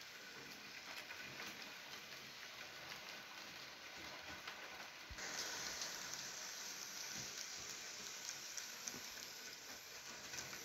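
OO-gauge model trains running on sectional track: a Bachmann GWR 94xx pannier tank with coaches and a Hornby J50 with goods wagons, giving a faint, steady rolling patter of small wheels on rail. A soft knock comes about halfway through.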